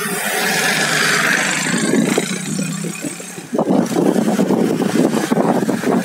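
Motorcycle engine running while riding in slow traffic, with road and traffic noise. It turns into a louder, choppy rumble about halfway through.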